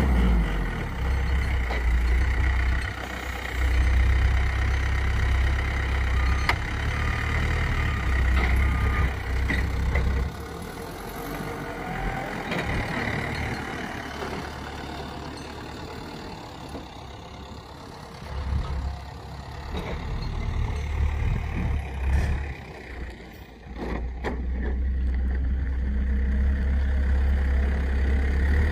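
Heavy vehicle engine running, louder for the first ten seconds and again over the last ten, with a few knocks.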